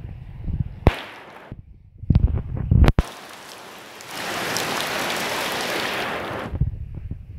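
Heavy rain falling on a flooded street, with wind or handling bumps on the phone's microphone and a sharp click near the middle. It swells into a loud, even rush of rain for a couple of seconds in the second half.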